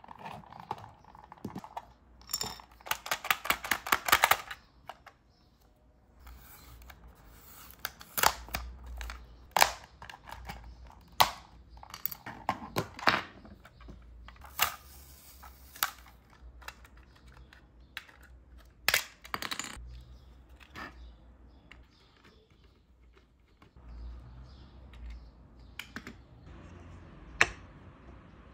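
Camera clicks and handling noise: a fast run of about ten clicks a second from about two to four seconds in, then single sharp clicks every second or few, over a faint low rumble.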